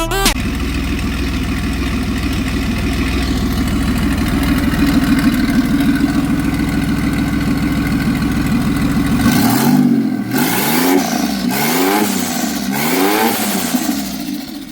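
Turbocharged Holden Commodore V6 engine running at a steady idle, then revved about four times from a little past halfway, the pitch rising and falling with each blip before settling back to idle near the end.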